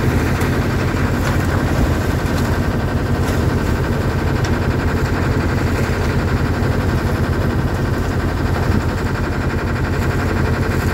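A 1978 Hughes 35 sailboat's auxiliary engine running steadily under way, a constant low drone with no change in speed.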